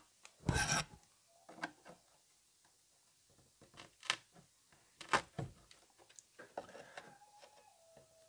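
Metal chassis of a 1955 Telefunken Operette 6 tube radio rubbing and knocking against its wooden cabinet as it is tugged and wiggled; it is stuck fast, its mounting grommets sticking to the cabinet. A scattering of short knocks and scrapes, the longest about half a second in.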